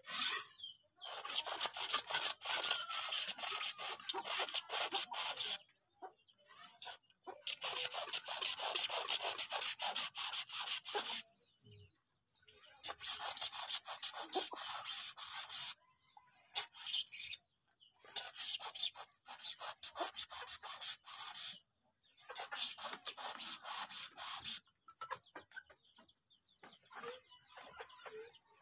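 Hand-pumped garden sprayer misting liquid fertilizer over melon seedlings, a hissing spray that comes in repeated bursts of a few seconds each with short pauses between, wetting the leaves.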